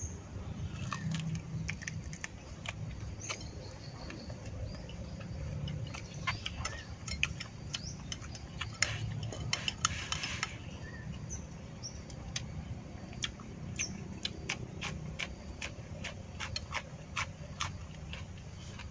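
A person eating grilled meat: chewing with repeated short wet mouth clicks and smacks, and chopsticks now and then clicking against a ceramic bowl, over a low steady background hum.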